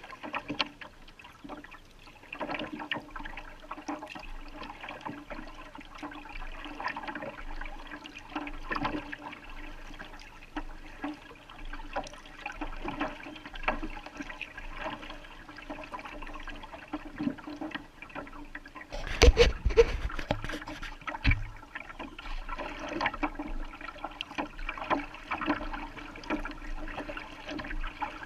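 Kayak being paddled on calm water: water trickling and splashing along the hull and dripping from the paddle, with many small drips and splashes. About two-thirds of the way through, a louder cluster of splashes or knocks stands out.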